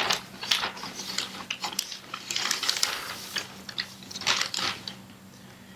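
A plastic bag crinkling and rustling in irregular bursts as it is handled and pulled off, dying down near the end.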